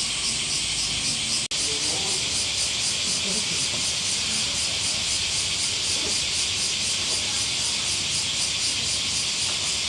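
Cicadas in full summer chorus: a loud, steady, high-pitched buzz that pulses quickly and evenly.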